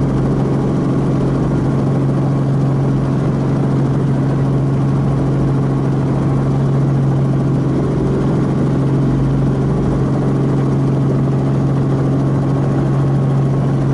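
Small helicopter's engine and rotor heard from inside the cabin: a steady drone with a strong low hum that holds one pitch throughout.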